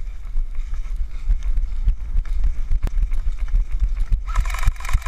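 Running footsteps thudding on grass, a few a second, over a low rumble of wind on the microphone. Someone briefly shouts near the end.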